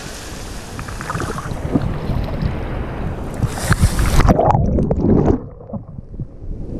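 Surf breaking and water washing over a waterproof action camera at the water's surface. About four seconds in a wave puts the camera underwater: the sound suddenly turns muffled, with bubbling. The hiss of the surf returns as it comes back up near the end.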